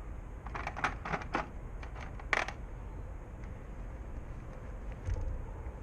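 A handful of small, sharp metal clicks from a tool tightening bolts on a carbon bicycle stem to 5–6 Nm, the loudest about two seconds in, over a steady low rumble.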